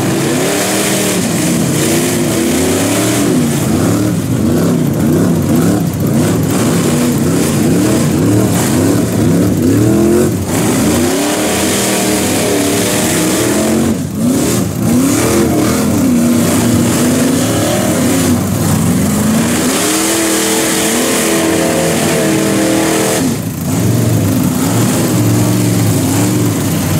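Engines of lifted mud trucks revving hard in a deep mud pit, rising and falling in pitch again and again as more than one engine is run up at once. Spinning tyres throw mud and water, a constant splashing hiss under the engines.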